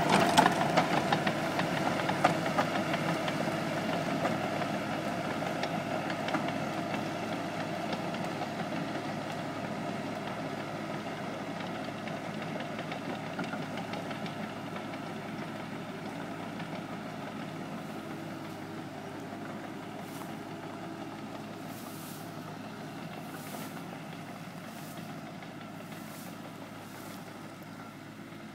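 Small Mitsubishi crawler bulldozer's diesel engine running as the dozer passes close by and then drives away, the sound fading steadily into the distance.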